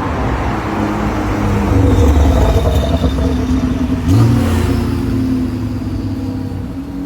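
Lamborghini Huracán STO's naturally aspirated 5.2-litre V10 engine revving: it swells about two seconds in, jumps sharply just after four seconds, then settles into a steadier, lower note.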